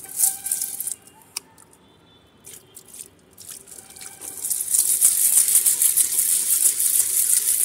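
Small glass bowl aquarium with pebbles inside being dipped and shaken in a bucket of water: a few light clinks and splashes at first, then from about halfway in, steady rapid sloshing and splashing as the bowl is shaken to rinse the dirt off the stones.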